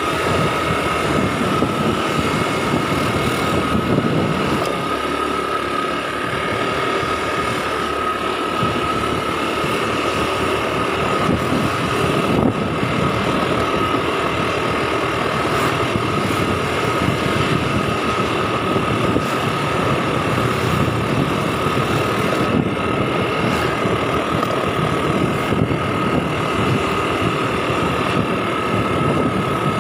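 Small motorcycle engine running at a steady cruise while riding, with road and wind noise and a constant steady whine.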